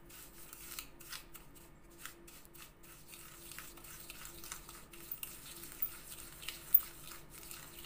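Wooden spoon stirring coarse sugar mixed with toothpaste in a small glass bowl: irregular scraping strokes and light clicks against the glass.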